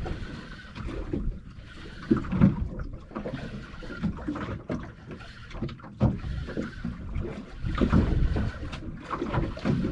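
Water slapping against the hull of a small boat drifting at sea, with irregular knocks and clicks from gear on board.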